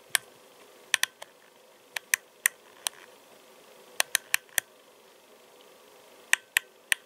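Sharp mechanical clicks of a CRT 279 UV mobile radio's controls as its menu is stepped through one item at a time. There are about fifteen clicks in small quick groups of one to four, with short pauses between the groups.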